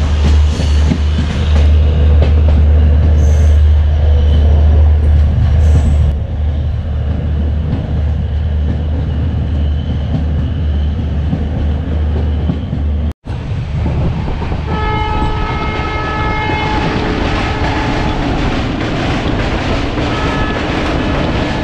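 Passenger train running, with a steady low rumble and wheel noise on the track. About two-thirds of the way through the train's horn sounds for about two seconds, and briefly again near the end.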